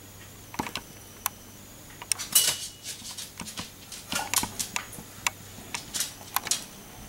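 Irregular light clicks, taps and clatter of small hard objects being handled, over a low steady hum.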